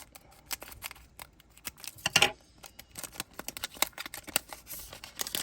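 A foil trading-card booster pack being opened and its cards handled: a string of small clicks and rustles, with a louder crinkle of the wrapper about two seconds in and another near the end.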